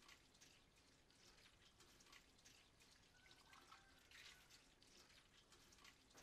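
Near silence: faint room tone with scattered light ticks.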